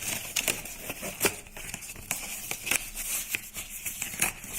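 Cardboard box and packaging being opened by hand: an irregular run of clicks, scrapes and rustles, with one sharper knock about a second in.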